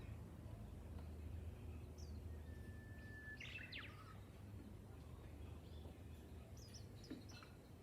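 Japanese bush warbler (uguisu) singing once: a long, steady whistled note followed by a quick flourish of notes. A few short, high chirps from other small birds come near the end, over a steady low background hum.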